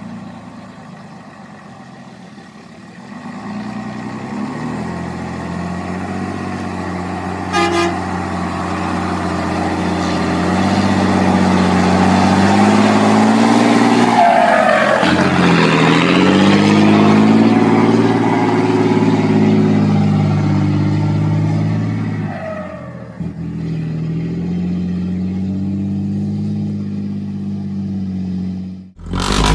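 Diesel engine of an FNM truck pulling under load, its pitch climbing with the revs, dropping sharply at a gear change about fifteen seconds in, then climbing again. A brief toot sounds about eight seconds in.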